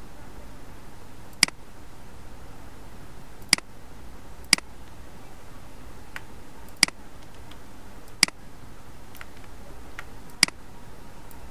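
Computer mouse clicking: six sharp clicks at irregular intervals, with a few fainter clicks between them, over a steady low hum.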